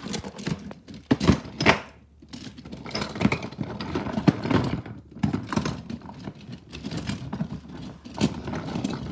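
Toy monster trucks clattering and knocking against each other as a hand rummages through a packed pile of them: a run of irregular clicks and thunks.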